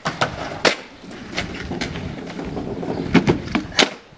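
Skateboard rolling on concrete, the wheels rumbling, with sharp clacks of the board and wheels striking, several in quick succession about three seconds in.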